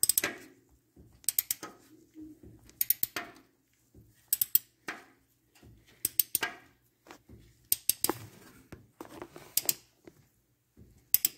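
Ratchet wrench clicking in short bursts of a few sharp clicks, about every second and a half, as a deep socket turns a new oil pressure sender into an engine block.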